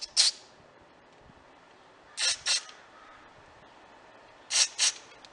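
Aerosol carburetor cleaner sprayed through its straw into a small carburetor jet in five short hisses: one, then two pairs about two seconds apart. It is flushing tiny fuel passages suspected of being plugged, the likely reason the engine would not start.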